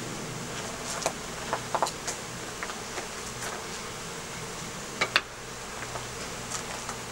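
Honey bees buzzing in a steady hum as they stream out of freshly unplugged hive entrances, with a few scattered sharp ticks, the loudest pair about five seconds in.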